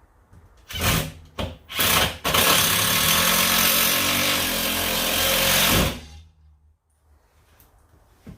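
Cordless drill driving a screw into a countersunk hole in a wood cabinet: a few short trigger blips, then one steady run of about three and a half seconds that stops suddenly as the screw head sinks in.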